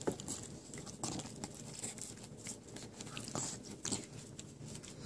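A Jack Russell terrier sucking and licking at a Great Dane's armpit fur as if nursing, making a run of irregular mouth smacks and clicks.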